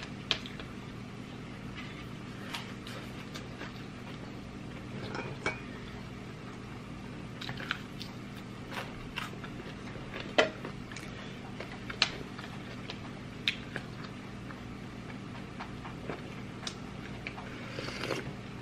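Close-up eating sounds: scattered wet clicks and smacks of chewing, with gloved fingers mixing rice on a plate, over a low steady hum. Near the end, a sip from a soup spoon.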